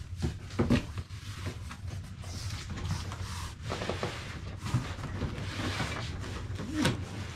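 Cardboard packaging rustling and scraping, with a few knocks, as a cardboard shipping box is opened and handled.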